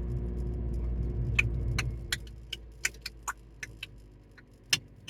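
Car running, heard from inside the cabin as a low rumble that eases off in the second half, with a string of irregular sharp clicks and ticks over it, the loudest near the end.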